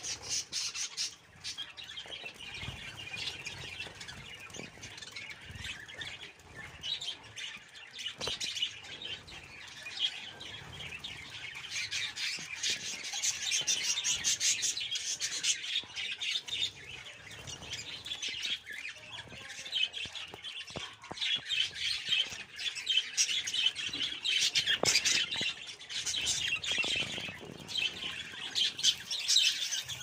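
A flock of budgerigars chattering and chirping continuously in a dense, high-pitched twitter, getting louder and busier about halfway through.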